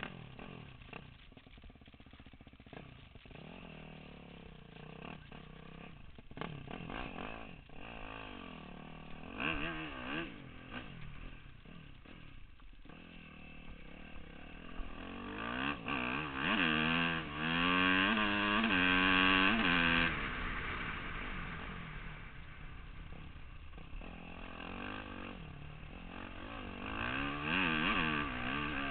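Motorcycle engine revving up and down through repeated rises and falls in pitch. It runs loudest and highest a little past halfway, then eases back.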